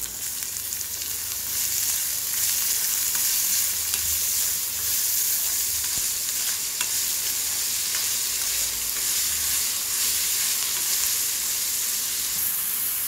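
Chopped onions sizzling in hot oil in a metal kadai and stirred with a spoon: a steady frying hiss that grows a little louder about two seconds in, with a few faint clicks of the spoon against the pan.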